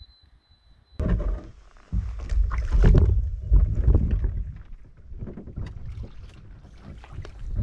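A canoe being handled in shallow water: irregular knocks on the hull and water sloshing, starting suddenly about a second in.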